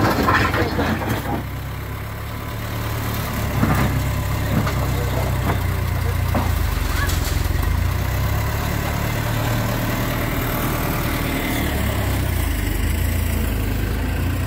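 Skid-steer loader engine running steadily, picking up a little after a couple of seconds, as the machine drives forward and pushes its bucket into gravel, with a few short knocks.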